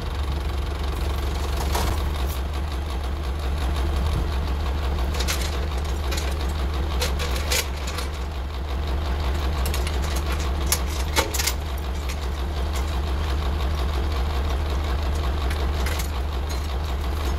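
Farm tractor engine idling steadily, with a few short sharp clinks and knocks as a chain is hooked up to a log at the tractor's rear.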